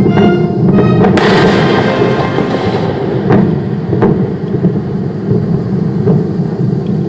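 A sudden explosion about a second in, followed by a hissing trail that fades over about two seconds, over a heavy continuous rumble. A couple of sharp cracks follow.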